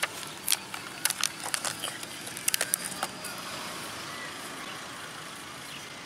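Plastic blister packaging crinkling and clicking as it is torn open by hand: a quick run of sharp crackles over the first three seconds, then only a steady background hiss.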